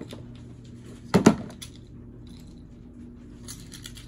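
Hollow plastic duck decoys being handled: a sharp double knock about a second in, then light clicks and rattles near the end, over a steady low hum.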